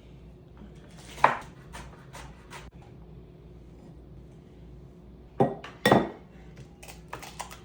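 Kitchen utensils knocking and clinking against dishes in a series of irregular sharp strikes, the loudest pair about five and a half to six seconds in.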